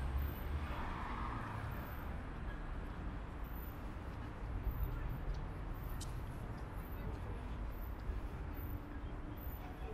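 City street ambience: a steady low rumble of traffic with indistinct voices of passers-by.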